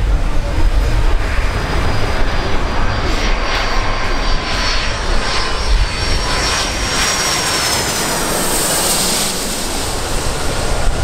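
Boeing 757-200 jet airliner passing low overhead on final approach, its engines a rushing noise with a high whine that slides slightly down in pitch as it goes by.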